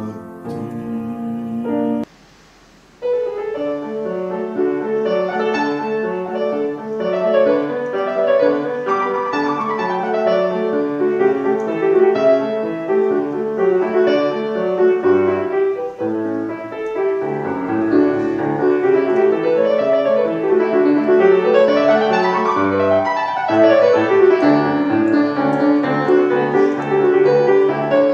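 Solo grand piano playing a classical piece with fast rising and falling runs. It starts after a brief drop about two seconds in, which follows the tail of a different piano excerpt.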